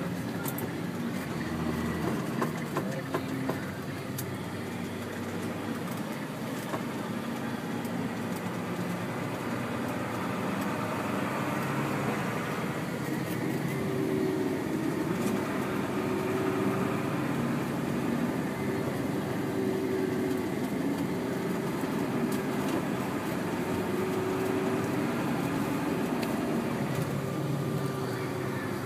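Steady engine drone and road noise heard from inside a moving vehicle's cab, growing slightly louder about halfway through. A few light clicks or rattles in the first few seconds.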